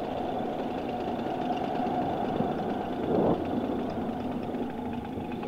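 Paramotor engine and propeller running steadily in flight, its carburettor newly tuned so that it runs cleanly. There is a brief louder swell about three seconds in.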